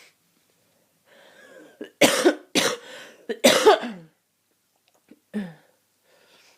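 A person with a head cold coughing: a faint in-breath, then a quick run of three or four harsh coughs about two seconds in, and a short, falling throat sound a second or so later.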